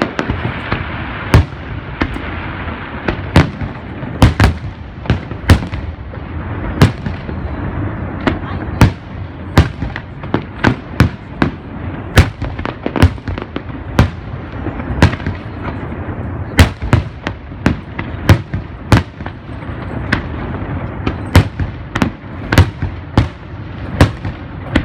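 Aerial fireworks display: shells bursting with sharp bangs in quick, irregular succession, about one or two a second, over a continuous din between the bangs.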